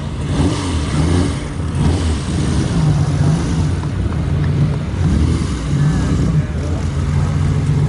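Classic car engine running at low speed as the car moves up, its revs rising and falling with several throttle blips, then settling to a steadier run near the end.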